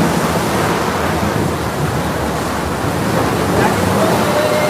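Loud, steady rushing noise of rough, stormy sea and wind around a boat in bad weather.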